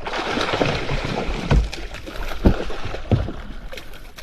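Water splashing and sloshing around a small boat in shallow water, with a few sharp low thumps.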